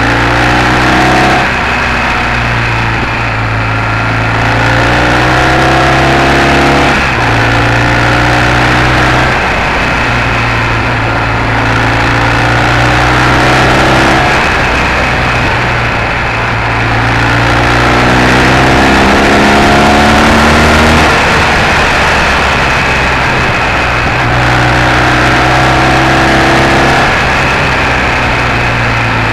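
BMW R 1200 GS boxer-twin engine under load as the motorcycle is ridden. The revs climb in several long pulls and drop back between them.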